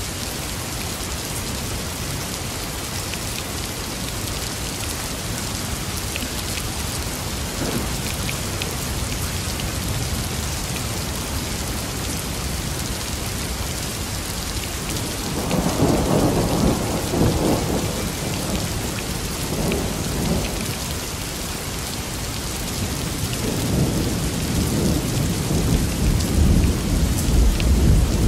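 Steady rain with rolling thunder. A rumble swells a little past halfway and dies away, and another builds toward the end.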